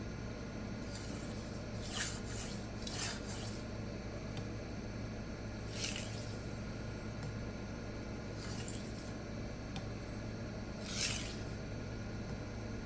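Light strokes of a hardened 52100 steel knife edge drawn across a resin-bonded diamond sharpening stone: about six short, soft scrapes a second or more apart. These are light deburring passes, meant to let the stone pull the brittle burr fragments off the edge.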